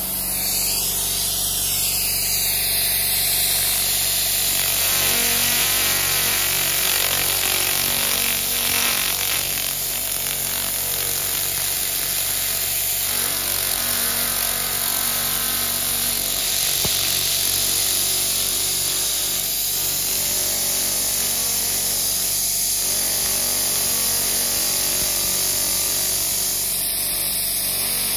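Handheld pulsed laser cleaner (LightWave 300GM) running its beam across a metal surface to matte it: a steady hiss with a low machine hum underneath.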